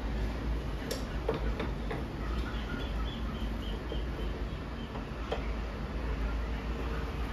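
A hand tool clicking and tapping against the copper pipe fittings under a split air conditioner's indoor unit: a few sharp metallic clicks, four in the first two seconds and one more about five seconds in, over a steady low hum.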